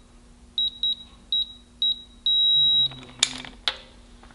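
Digital torque adapter on a ratchet beeping as an oil-pump bolt is tightened to 35 ft-lb: four short high beeps, then one longer steady beep as the set torque is reached. Two sharp clicks follow.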